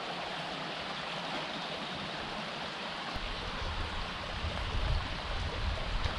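A creek running steadily with an even rushing hiss, joined by a low rumble from about three seconds in.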